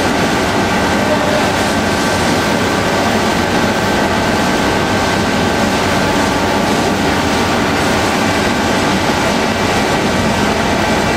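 Belt conveyor running steadily with filled sacks riding on it: a continuous mechanical rumble and rattle from the belt and rollers, with a few faint steady whining tones over it.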